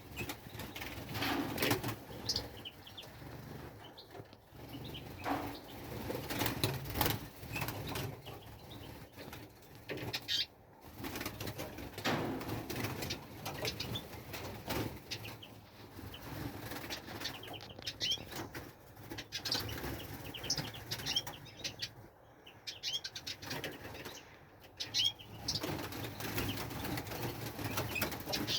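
Small songbirds fluttering their wings in repeated short flurries, with short chirps among the wing noise.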